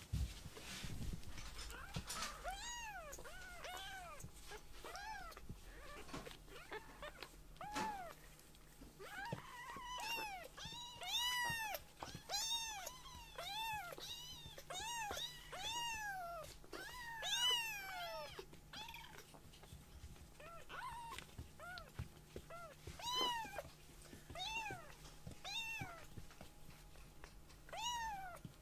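Young kittens mewing over and over: short, high-pitched mews that rise and fall, coming thickest in the middle.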